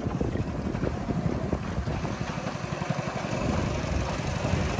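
Wind buffeting the microphone aboard a motorboat on a river: a steady, fluttering low rumble.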